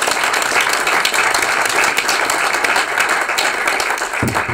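Audience applauding, a dense steady clapping that begins to thin out near the end.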